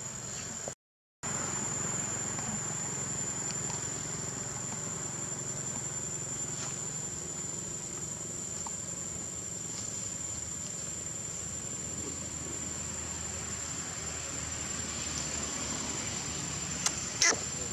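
Steady high-pitched drone of forest insects over a low, even background rumble. It cuts out briefly about a second in, and two sharp clicks come near the end.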